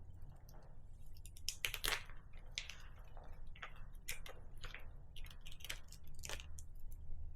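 Small plastic bag crinkling and crackling in irregular clicks as it is handled and opened.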